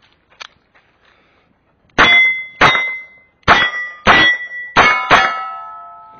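Six shots from a Chiappa Charging Rhino revolver, emptying its six-shot cylinder in quick pairs and singles, each answered at once by the ringing clang of a hit steel target. The last hits ring on longest and fade away slowly.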